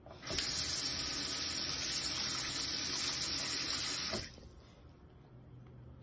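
Bathroom sink faucet turned on, water running steadily into the basin for about four seconds, then shut off.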